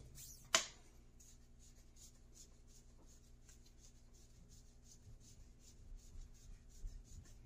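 Faint handling sounds of hands working the rocket motor case and its parts, with one sharp click about half a second in and a few soft knocks near the end.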